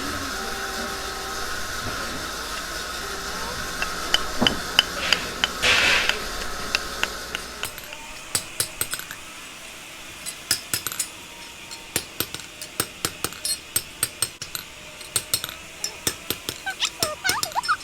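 Hammer tapping in a woodworking shop: an irregular run of sharp taps, several a second, starting about halfway through, after a steady hum and a few scattered knocks.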